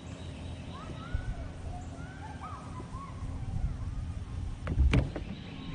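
Birds calling in a run of short chirps that rise and fall, over a low background rumble. About five seconds in, a single sharp knock stands out.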